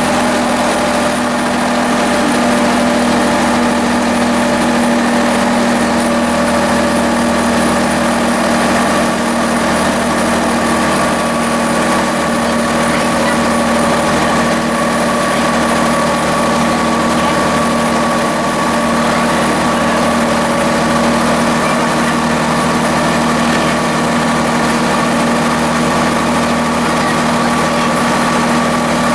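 Diesel engine of a vintage railcar running steadily while the train travels along the line, heard inside the driver's cab: a loud, even drone with several held tones over rumbling running noise.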